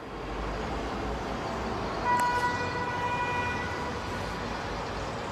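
Steady street traffic noise, with a vehicle horn sounding one steady note for about a second and a half a couple of seconds in.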